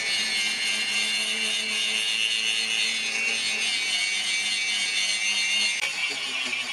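Electric angle grinder with an abrasive disc grinding a steel knife blade: a steady hissing grind over the motor's hum, with a short break near the end.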